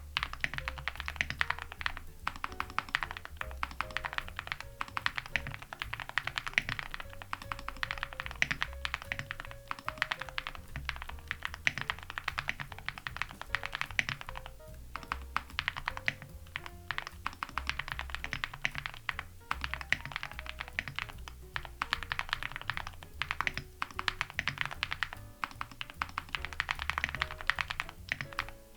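Continuous fast typing on a mechanical keyboard with Gateron Moon Landing switches, an aluminium plate, full foam and dye-sub PBT keycaps: dense key clacks with a couple of short pauses. Jazz music with a bass line plays underneath.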